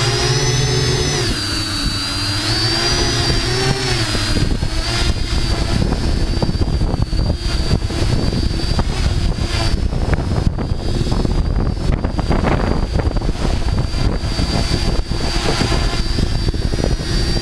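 Multirotor camera drone's motors and propellers whining, heard from the drone's own microphone, with the pitch shifting as the motors change speed over the first few seconds. After that a rough rumbling wind noise on the microphone dominates beneath the steady high whine.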